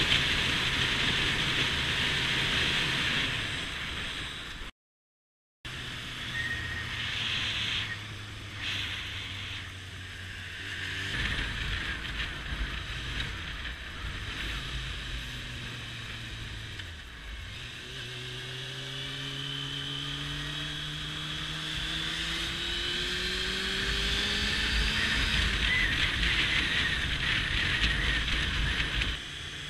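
Honda CBF motorcycle engine running at road speed, rising in pitch several times as it accelerates, with a steady rush of wind noise. The sound drops out completely for about a second roughly five seconds in.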